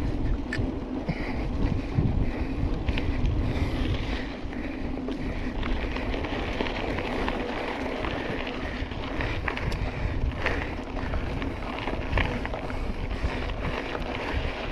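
Wind buffeting the microphone of a handlebar-mounted camera on a mountain bike riding fast over a dirt trail, with steady tyre noise and many small rattles and knocks from the bike jolting over bumps.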